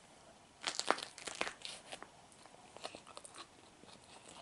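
A person biting into an unpeeled banana, skin and all, and chewing it: a quick run of crunching bites about a second in, then fainter chewing sounds.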